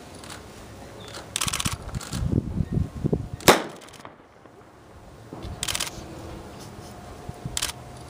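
A single sharp shot from a starter pistol fired straight up into the air, about three and a half seconds in.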